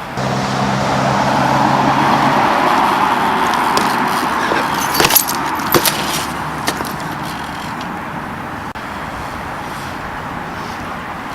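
BMX bike rolling on concrete, the tyre noise swelling and then slowly fading, with a few sharp metallic clacks and rattles about five to seven seconds in.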